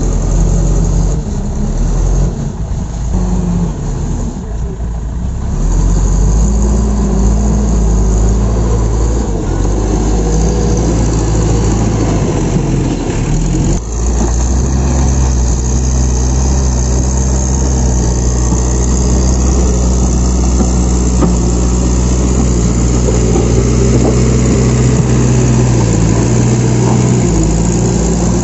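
Case backhoe loader's diesel engine running steadily as the loader works loose earth, with a low, even engine note throughout.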